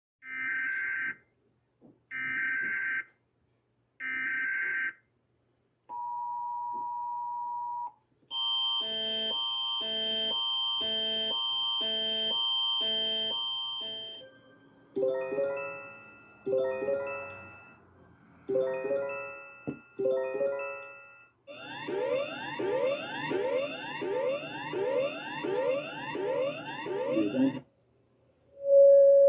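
A sequence of electronic emergency-alert alarm tones: three short buzzy data-like bursts, then a steady two-note tone for about two seconds. A pulsing multi-tone alarm follows, then groups of falling chime-like tones, then rapidly repeated rising sweeps, and a steady low tone begins just before the end.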